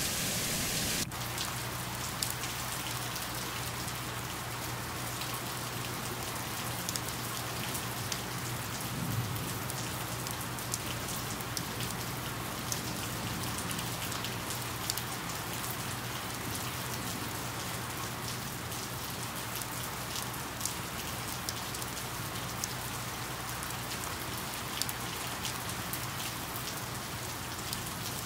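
Steady rain falling, with many individual raindrops ticking sharply close by, over a faint low steady hum. About a second in, a louder rush of rain cuts off abruptly.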